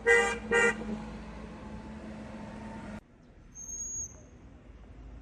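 Two short beeps of a vehicle horn right at the start, over steady street hum. About three seconds in, the background drops away suddenly, and a brief thin high whistle follows.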